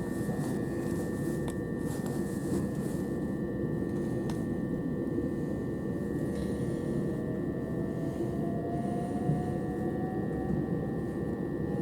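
Interior noise of a Southern Class 377 electric multiple unit: a steady low rumble with a constant high whine. A faint tone rises slowly in pitch through the second half.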